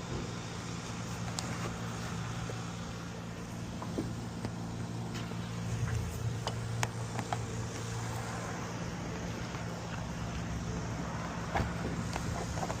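Light scattered clicks and taps, typical of lockout tools being worked at a car door, over the steady low hum of a running vehicle engine.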